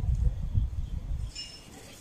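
Wind buffeting the microphone, a low uneven rumble that is heaviest for the first second and a half and then drops away. A faint high chirp sounds about a second and a half in.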